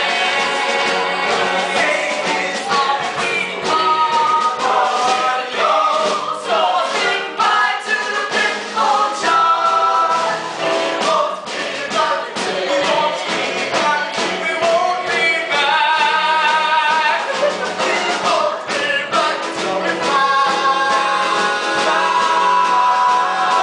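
Stage-musical cast singing together in chorus, with instrumental accompaniment.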